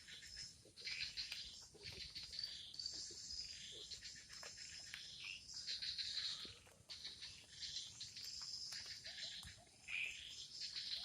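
Insects and birds calling: a dense, uneven, high-pitched chirping and buzzing, with a few light clicks scattered through it.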